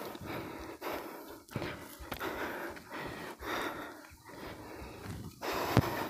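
A person panting heavily, breath after breath, out of breath from climbing a steep hill. There is a sharp knock near the end.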